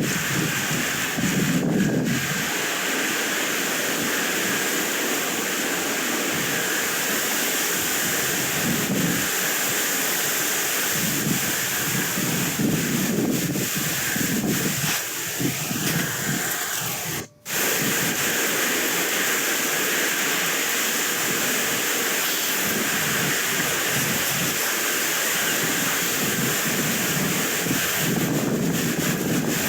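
Wind blowing across the microphone: a steady rushing hiss with gusts of low rumble, dropping out for a moment a little past halfway.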